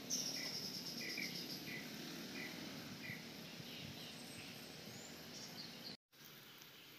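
Rural daytime ambience of birds and insects calling: a short chirp repeating about every two-thirds of a second, with a quick high trill in the first second and a few higher whistled notes later. The sound drops out briefly near the end.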